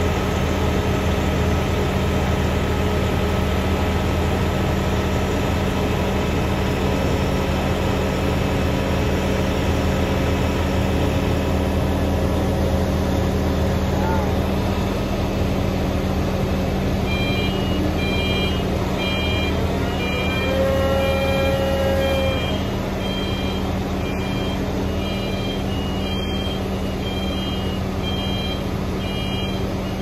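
Mobile crane's diesel engine running steadily at working speed. From a little past halfway, a regular high-pitched electronic warning beeper sounds over it, about one beep a second.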